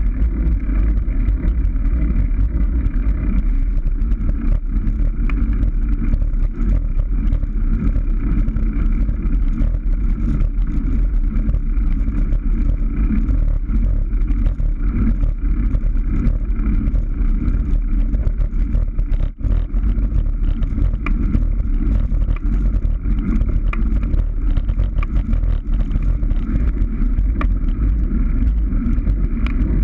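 Steady, heavy wind rumble over the microphone of a camera riding on a moving road bicycle, dull and muffled, with a momentary dip about twenty seconds in.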